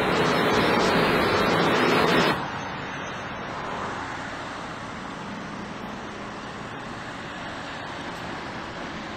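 Road traffic noise: a vehicle passing close by, loud and even, cutting off suddenly about two seconds in to a quieter, steady road hum.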